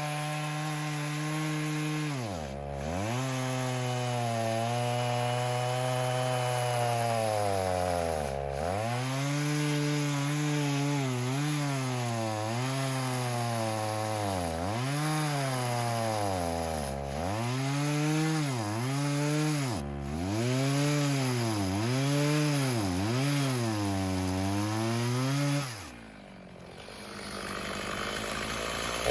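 Gas chainsaw cutting oak logs, its engine pitch dipping again and again as the chain bogs down in the wood and then picking back up. Near the end the throttle is let off and the saw drops to a low idle, then revs up again.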